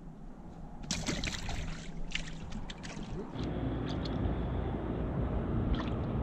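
A run of clicks and rattles, then a little over three seconds in a boat motor starts and runs with a steady low hum.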